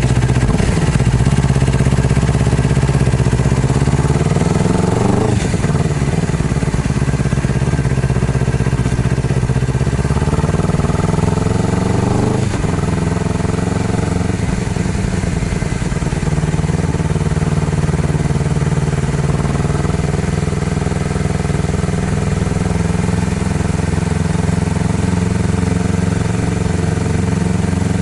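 Honda CBR250RR motorcycle engine running just after being started. Its pitch climbs and drops sharply twice, about five and about twelve seconds in, then holds steady.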